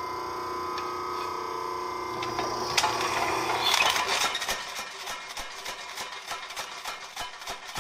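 Home-built power hammer: a steady motor hum, then from about four seconds in the ram strikes rapidly and evenly, hammering angle iron laid over a fuller to bend it into a curve.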